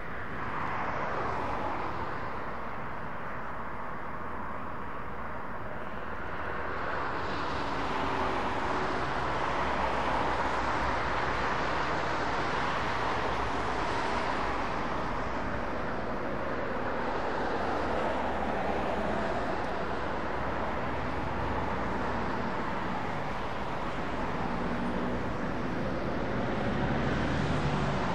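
Boeing KC-135R Stratotanker's four CFM56 (F108) turbofan engines running steadily as the tanker lands and rolls out down the runway.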